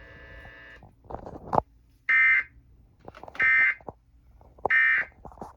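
Emergency Alert System end-of-message data bursts: three short, harsh digital buzzes, each under half a second, about a second and a quarter apart. Faint clicks fall between them.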